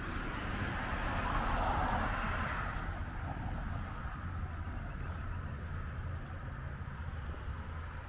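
A car passing on the street, its tyre and road noise swelling and fading over the first few seconds, over a steady low rumble of traffic.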